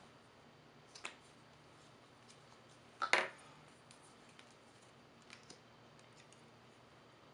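Small plastic clicks from mascara tubes being capped and uncapped as one mascara is swapped for another. There is a single click about a second in, a louder short clatter of several clicks around three seconds in, and two light clicks a little past five seconds.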